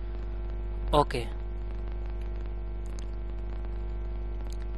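Steady electrical mains hum, with a brief vocal sound from the narrator about a second in.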